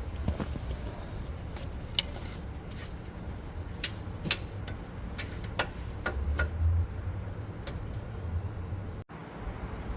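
Scattered light clicks and taps of brake parts and bolts being handled, over a low steady hum.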